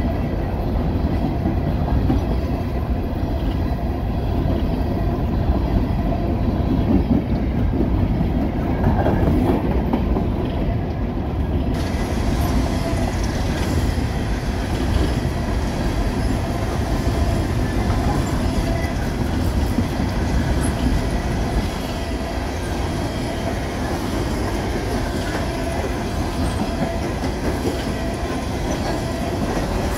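Empty steel coal cars of a freight train rolling past close by: a steady rumble of wheels on the rails with a rhythmic clickety-clack from the trucks. A faint high hiss joins about twelve seconds in.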